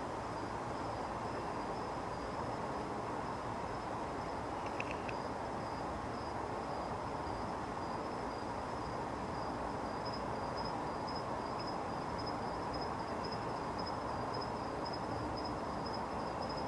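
Steady background noise with a faint, continuous high trill typical of an insect. There is a brief high chirp about five seconds in.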